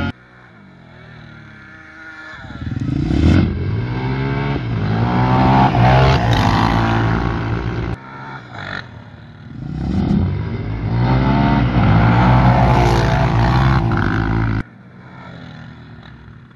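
Motorcycle engines accelerating hard in a drag run, rising in pitch as they pull away. This happens in two runs, each cut off abruptly.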